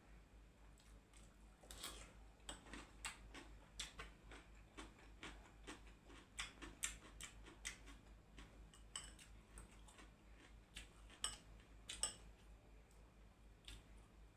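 Close-up eating sounds: irregular wet clicks and smacks of chewing, about two or three a second, with some louder ones, over a faint low hum.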